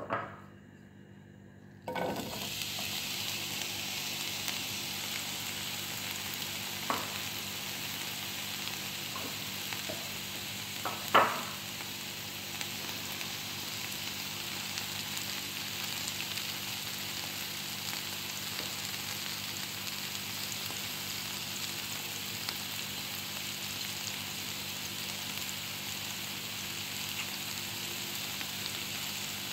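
Kofta frying in hot oil in a pan: the sizzle starts suddenly about two seconds in and stays steady. A few short knocks, the loudest about eleven seconds in.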